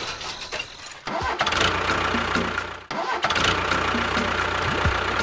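A small vehicle motor running with a steady hum, cutting out briefly about one second in and again near three seconds in before picking up again.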